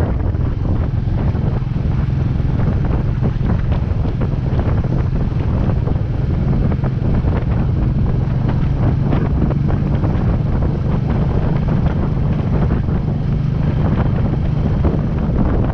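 Wind buffeting the microphone while riding a Royal Enfield Meteor 350, whose single-cylinder engine runs underneath at an even level, with no change in speed.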